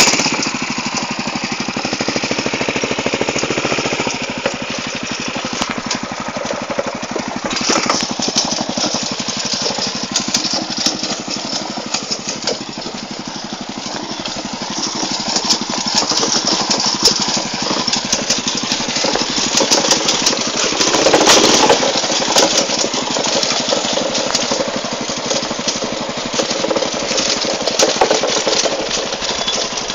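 Small engine of a homemade go-kart running steadily, swelling louder and easing off several times.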